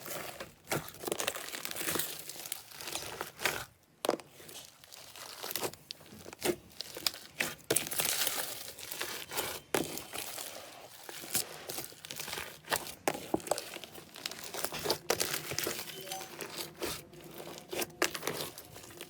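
Slime being pressed and kneaded by hand, giving dense, irregular crackling and crinkling.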